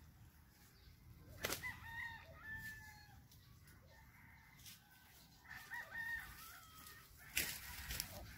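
A rooster crowing twice, faintly: once about two seconds in and again about five and a half seconds in. A sharp knock comes just before the first crow and another near the end.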